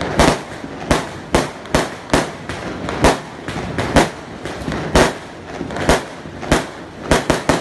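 Aerial fireworks going off in rapid succession: sharp bangs about two a second with crackling between them, and three in quick succession near the end.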